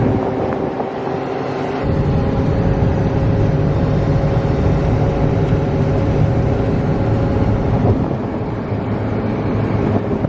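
Ford F-350 pickup truck on the move: a steady drive-along rumble of engine and road noise, with wind buffeting the microphone. The low rumble gets heavier about two seconds in and eases off near the end.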